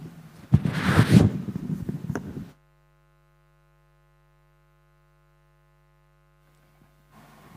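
Handheld microphone being handled and passed from hand to hand: about two and a half seconds of loud rustling and bumping. Then the sound cuts off abruptly, leaving only a steady electrical hum.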